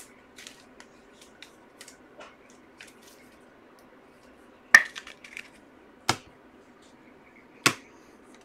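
Light clicks and taps of objects being handled on a table, with three sharper clicks about halfway through, a second later and near the end, over a faint steady hum.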